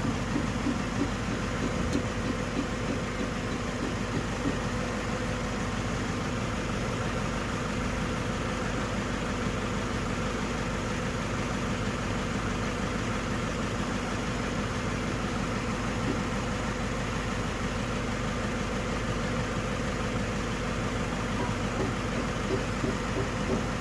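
Toyota 2TR four-cylinder petrol engine idling steadily, an even running note with a fast regular pulse.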